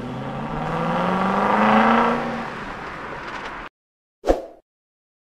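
A car engine revving up in a logo intro sound effect. The pitch climbs for about two seconds and eases off, then cuts off suddenly. A single short thump follows about a second later.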